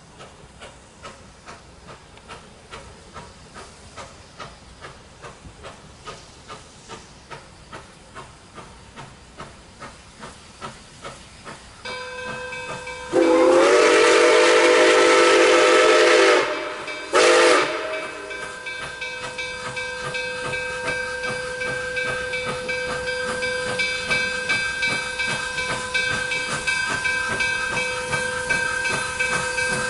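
Nickel Plate 765, a 2-8-4 Berkshire steam locomotive, working slowly, its exhaust chuffing about twice a second and growing louder as it approaches. About a third of the way in, its steam whistle sounds one long blast and then a short one. After that a steady high whine runs alongside the chuffing.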